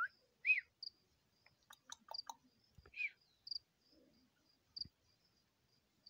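Outdoor chirping: short high chirps repeat every half second or so at one pitch, with two louder chirps that rise and fall about half a second and three seconds in, and a few faint clicks.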